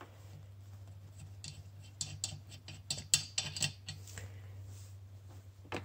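Ratchet clicking in quick, irregular runs as a 15 mm socket works the windshield wiper arm nut, with metal tool clicks. A steady low hum runs underneath.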